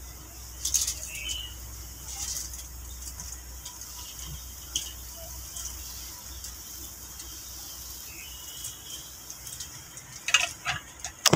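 Outdoor garden ambience: a steady high hiss with scattered short chirps and ticks. A cluster of sharp knocks and rustles near the end is the loudest part.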